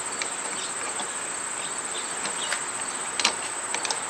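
Steady high-pitched insect chirring throughout. Over it come a few light metallic clicks, one louder a little past three seconds in, as a Phillips screwdriver backs the stock bar end weight out of the handlebar.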